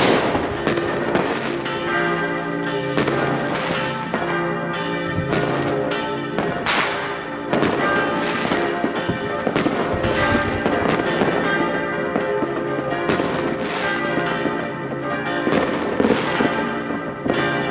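New Year's Eve fireworks: repeated bangs and crackles from shells and firecrackers, with a sharp bang about seven seconds in. Underneath, church bells are ringing steadily.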